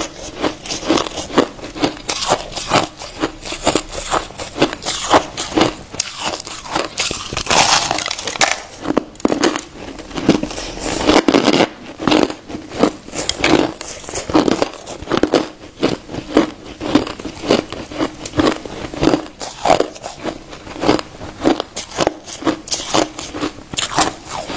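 Crushed ice being bitten and chewed close up: a dense, continuous run of crisp crunches and crackles, several a second.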